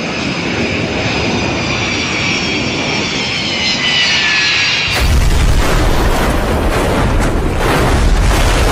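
Boeing 727 tri-jet airliner coming in low with its jet engines whining, the whine slowly falling in pitch. About five seconds in it strikes the ground, and a loud, deep, continuous crashing noise of the airframe breaking up and ploughing through sand takes over.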